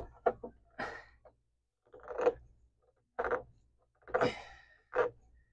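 A series of short scraping strokes, roughly one a second, as a tool is worked through a rust-packed hole in a Harbor Freight miter saw.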